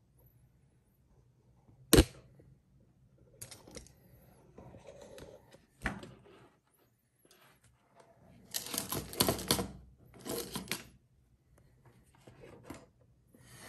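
Hard objects handled on a wooden tabletop: a sharp click about two seconds in, another near six seconds, then a spell of clattering and rattling from about eight to eleven seconds in.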